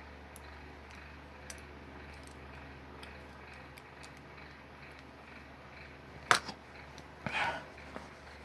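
Plastic LEGO pieces being handled and fitted together: faint scattered clicks, then one sharp snap about six seconds in and a short rattling clatter just after seven seconds, over a low steady hum.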